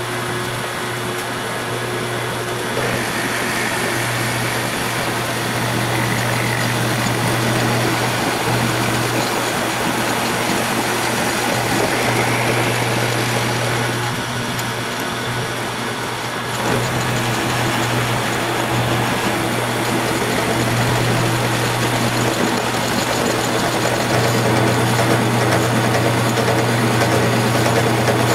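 Belt-driven milling machine running with a large face-milling cutter taking a facing pass across a 6061 aluminum plate: a steady motor hum under the continuous noise of the cut.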